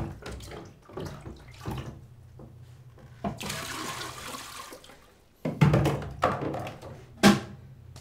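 Bathroom tap running for about a second and a half in the middle, amid knocks and splashes of water being handled at a basin in a small tiled room. The loudest sharp knocks and splashes come in the last few seconds.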